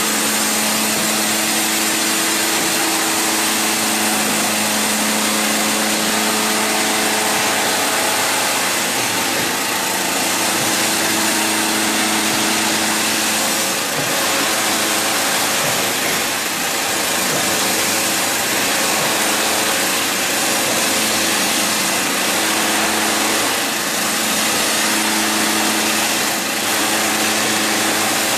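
Electric-motor CS300 concrete scarifier running steadily, its cutter drum chipping an old epoxy coating off a concrete floor: a loud, even hissing clatter over a steady motor hum.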